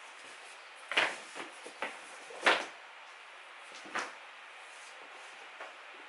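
A few soft knocks and thumps, the loudest about a second and two and a half seconds in: a rolled exercise mat being handled and set down on a wooden floor, with footsteps.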